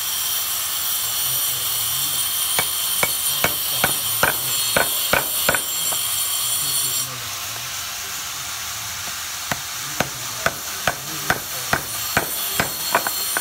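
Hammer striking a steel chisel that cuts grooves into a wooden chopping board. The taps are sharp and come about two to three a second, in two runs with a pause of a few seconds between them.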